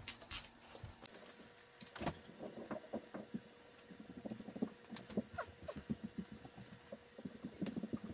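Leather shoulder-holster straps and buckles being handled and fastened to a belt: irregular small clicks and ticks of the buckle hardware with leather and clothing rustling between them.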